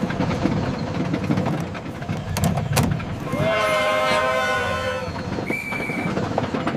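Train running, with a steady low rumble and clatter. Midway, a train whistle sounds for about two seconds.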